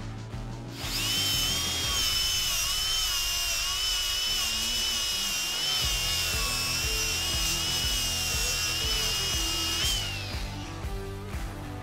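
DeWalt cordless angle grinder cutting into a metal bar: a loud, steady high-pitched whine with a harsh grinding hiss that starts about a second in, wavers slightly as the wheel is pushed into the cut, and winds down with a falling pitch near the end.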